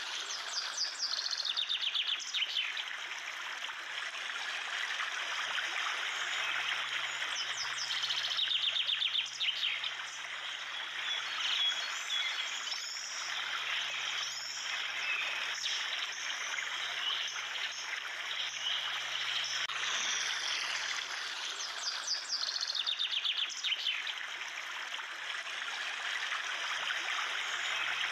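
Steady rush of running water with birds chirping over it; quick trilling calls come and go several times.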